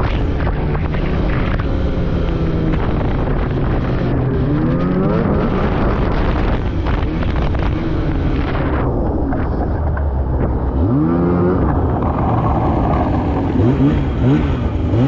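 Two-stroke snowmobile engine running under way, its revs rising and falling several times, with a sharp rev-up about five seconds in, another near eleven seconds, and quick throttle blips near the end.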